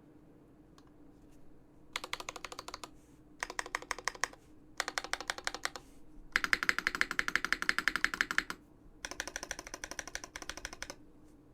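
Dolphin v2 mechanical keyboard with an aluminium plate, lubed Everglide Dark Jade Black switches on 63.5g slow springs and GMK keycaps being typed on fast. About two seconds in, five quick bursts of keystrokes follow one another, with short pauses between them; the fourth burst is the longest and loudest. The typing stops shortly before the end.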